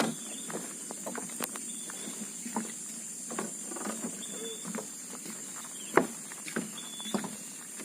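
Irregular footsteps and knocks on a wooden plank bridge, with one sharper knock about six seconds in. A steady high hiss and a short high chirp repeating every second or two run behind them.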